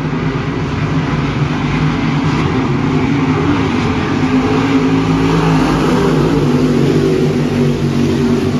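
A pack of dirt late model race cars lapping a dirt oval, their V8 engines running together in a steady drone that swells a little past the middle as the cars come around.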